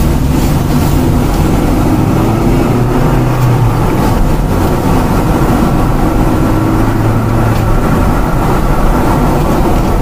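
A car driving at road speed, heard from inside the cabin: steady engine hum with tyre and road noise, the engine note drifting slightly up and down.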